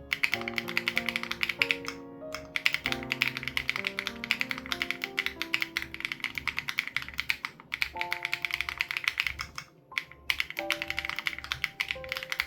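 Fast typing on an SPM AL87B mechanical keyboard with BSUN Raw switches and its sound-dampening foam removed: a rapid stream of keystrokes that breaks off briefly about two seconds in, near the middle, and again about ten seconds in. Background music with held notes and a soft beat plays underneath.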